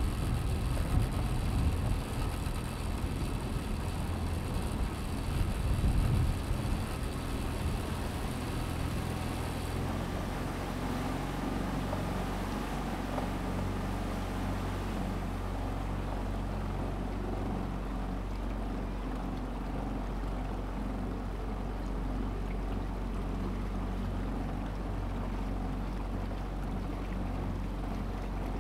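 Motorboat engine running steadily at low speed, an even low hum. For about the first ten seconds it is louder, with a hiss over it, then it settles.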